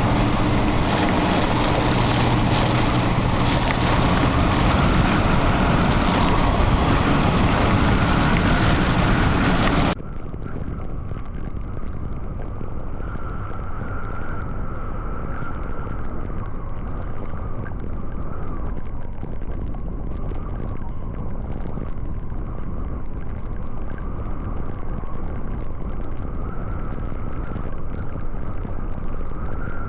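Wind buffeting the microphone over the steady hum of a running vehicle. About ten seconds in it cuts off abruptly to a quieter, duller low rumble with a faint wavering tone.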